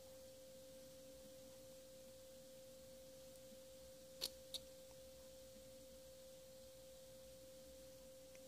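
Near silence with a faint, steady, single-pitched tone throughout, and two short clicks about a third of a second apart a little past the middle.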